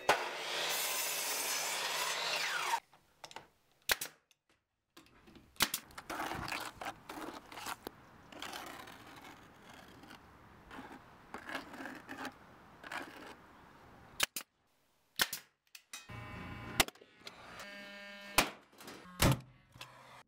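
A compound mitre saw's blade cuts through a wooden board for about three seconds, with a falling whine as the cut finishes. Then wet concrete is tipped from a bucket and worked into wooden moulds, with scattered scrapes and knocks. Near the end there are two sharp bangs of a nail gun firing into timber.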